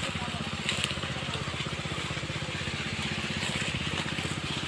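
A small engine running steadily at idle, with a fast, even pulsing beat.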